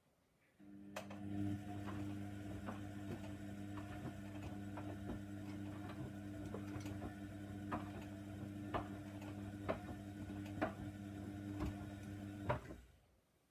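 Hoover Nextra washer dryer's motor starting up and turning the drum for about twelve seconds, a steady hum with repeated light knocks from the tumbling load, then stopping suddenly near the end.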